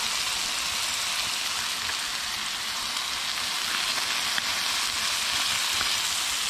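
Blackened crappie fillets frying in butter in a cast iron skillet: a steady sizzle with a few small pops.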